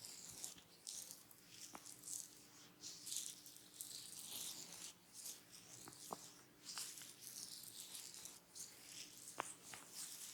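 Faint, close-up sound of hands massaging skin and hair: soft, irregular rubbing and swishing, with a few faint clicks.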